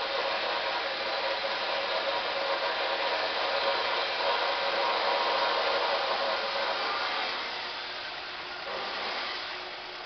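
A steady rushing hiss of blown air with a faint hum of steady tones in it, easing off about seven seconds in.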